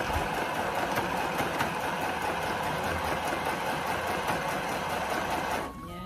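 Electric sewing machine running steadily, its needle stitching in a fast, even rattle, then stopping suddenly near the end.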